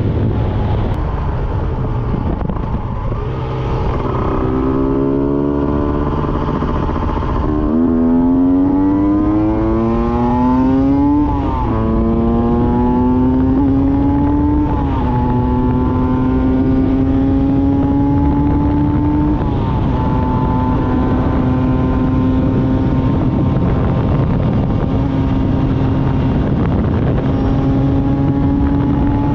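Honda NSR 125's two-stroke single-cylinder engine accelerating up through the gears: its pitch climbs and drops sharply at each of about four upshifts, then holds at a steady cruise with a slowly rising note. A constant rush of wind and road noise runs underneath.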